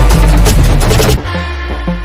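Electronic background music, loud and dense, dropping about a second in to a quieter, sparser beat.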